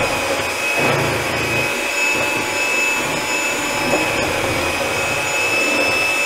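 Electric hand mixer running steadily with a constant high whine, its beaters churning a soap batter of melted bear grease, lye and water in a plastic bowl while it is beaten toward trace.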